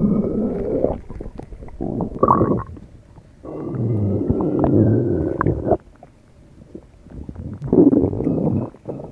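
Stomach rumbling and gurgling in several irregular bouts, the longest lasting about two seconds in the middle, some with a faint squeaky high tone.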